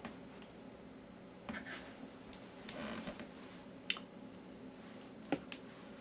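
Faint handling sounds as the laptop's bottom access panel is screwed back on with a small screwdriver: light rustling and ticking, with two sharper clicks about four seconds in and again a second and a half later.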